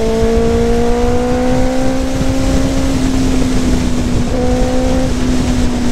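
Benelli motorcycle engine pulling at cruising speed, its pitch rising gently for the first two or three seconds and then holding steady, with heavy wind noise over the rider's microphone.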